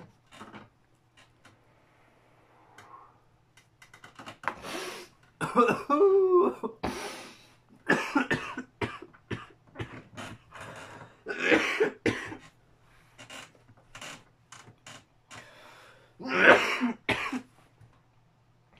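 A man coughing hard in repeated fits after a deep bong hit of cannabis smoke. The coughs begin about four seconds in and come in bursts until near the end.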